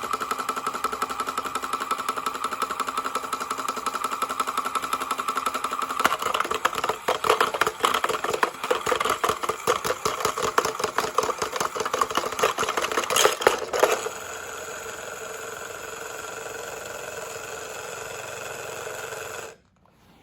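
Lego washing machine's small electric motor and gears spinning the drum with a steady, fast-pulsing whine. About 6 s in, a loose Lego brick starts clattering and knocking hard inside the drum, with a loud bang near 13 s. The clattering stops about 14 s in and only the steadier motor whine runs on, which fits the drum coming loose, until the machine is switched off near the end.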